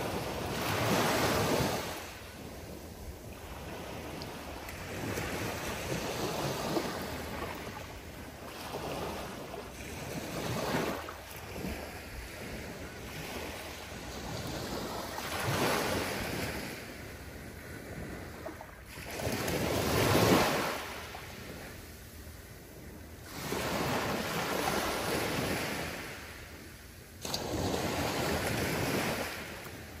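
Small waves breaking gently on a sandy beach and washing up the sand, a hiss that swells and fades every four to five seconds, about seven times, the loudest about twenty seconds in.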